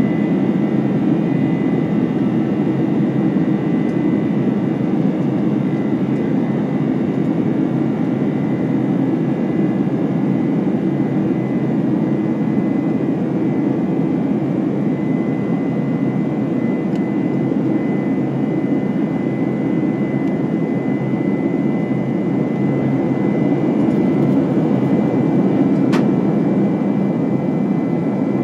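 Steady jet cabin noise aboard a Boeing 747-400 with GE CF6-80C2B1F engines: a dense low rumble with a thin, steady high whine over it. One brief click near the end.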